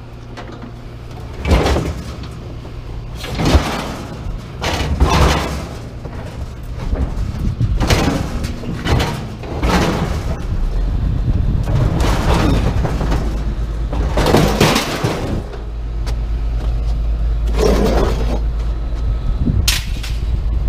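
Scrap metal being pulled off a truck bed and dropped, clanking and clattering in a string of about ten sudden crashes.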